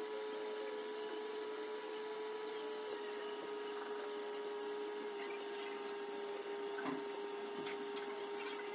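A steady hum with one constant mid-pitched tone and fainter higher tones, broken by a few faint clicks.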